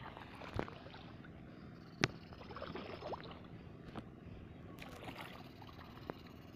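Wading through shallow pond water thick with lily pads: soft, irregular sloshing and splashing, with a sharp click about two seconds in.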